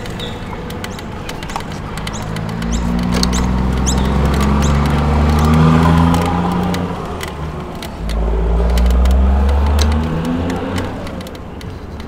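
Riding an electric hire bike along a cycle path: low wind rumble on the helmet-mounted camera's microphone and a steady light rattle of clicks. A low, droning hum swells twice, about three seconds in and again about eight seconds in.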